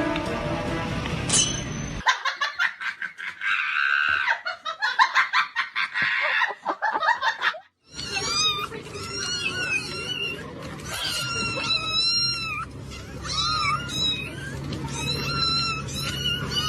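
An animal's high-pitched cries, repeated many times and bending up and down in pitch, in the second half, after a stretch of rapid chattering pulses.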